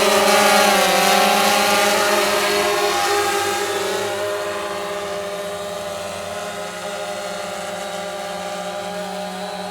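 XIRO Xplorer quadcopter's motors and propellers whining in flight: several steady tones that bend slightly in pitch as it manoeuvres. The sound grows fainter after about three seconds.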